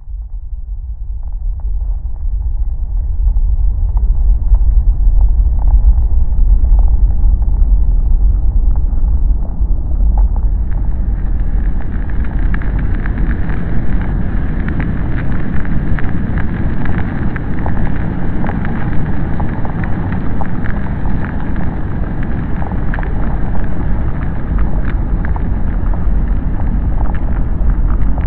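Ambient soundscape of deep, steady rumbling and rushing noise that swells up from silence over the first few seconds and turns brighter and fuller about ten seconds in, with faint crackles scattered through it.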